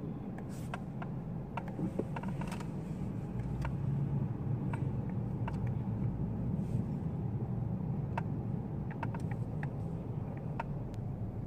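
Car's engine and tyres heard from inside the cabin: a steady low rumble while the car creeps forward in slow traffic, with a few faint, irregular clicks.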